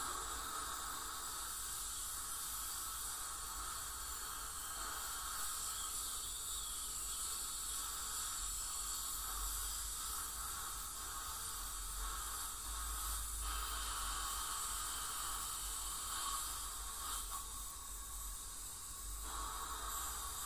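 Ultrasonic dental scaler and suction running during a teeth cleaning: a steady hiss of water spray and suction, with faint steady high tones.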